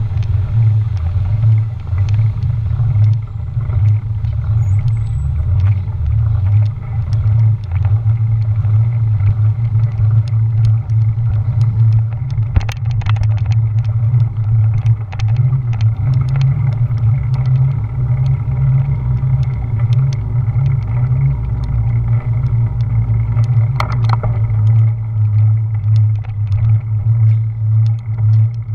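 Loud, steady rumble of wind and road vibration on a bicycle-mounted GoPro Hero 4's microphone as the bike rolls along, with scattered small ticks and rattles.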